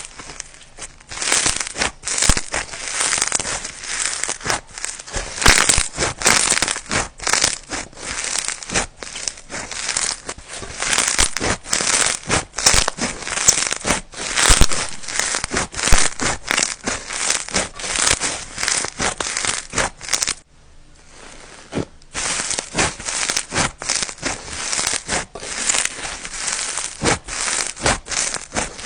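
Boba-themed slime being squished and pressed by hand, giving dense crackling, popping and squelching clicks, with a short pause about twenty seconds in.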